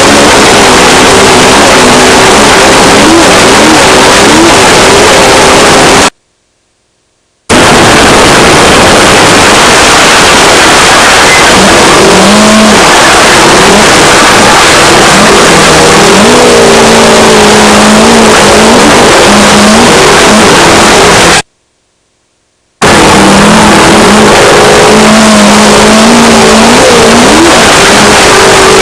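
Off-road race car engine revving up and down under a loud, steady rush of noise, heard from inside the car. The sound cuts out completely twice, for about a second each time.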